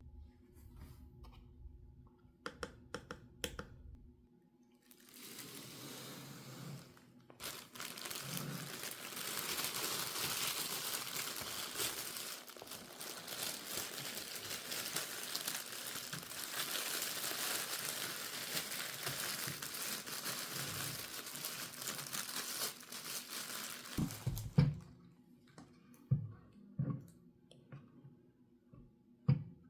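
Packaging crinkling and rustling as a toy set is unpacked, a long continuous stretch of handling noise. A few clicks come before it and several knocks follow near the end.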